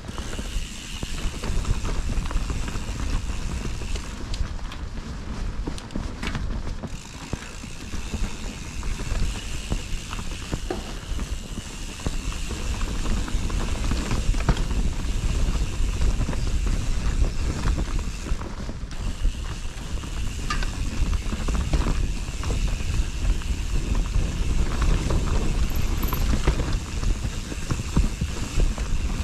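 Mountain bike being ridden along a forest trail: tyres on dirt and the frame and parts rattling over rough ground, with wind rumbling on the microphone.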